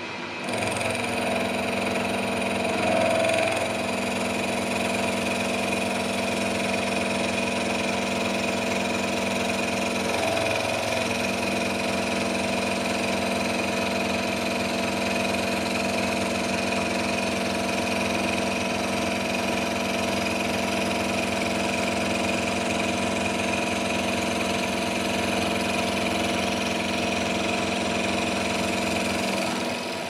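Vertical milling machine taking a cut, its end mill working along a metal piece as the table feeds it past: a steady machine whine with several tones that starts about half a second in and stops just before the end. The cut leaves the piece 2 mm thick.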